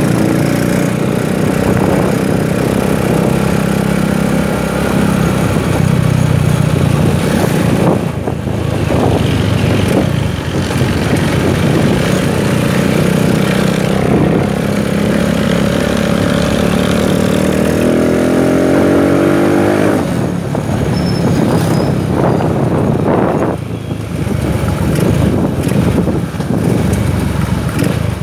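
Rusi 200 motorcycle's engine running under way, its pitch climbing as it accelerates and dropping sharply about eight seconds in and again about twenty seconds in, over a steady hiss.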